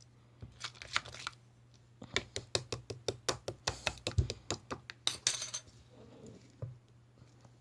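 Slime being pressed and squeezed by hand, giving a short burst of sticky clicks about half a second in, then a quick run of clicks and pops, about five a second, for some three seconds.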